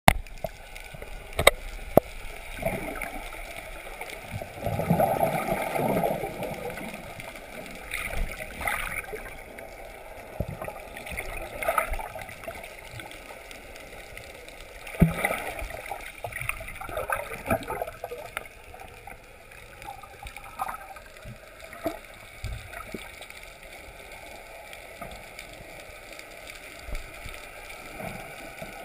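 Muffled underwater water noise heard through a GoPro's waterproof housing: gurgling and sloshing that swells now and then, with two sharp clicks near the start.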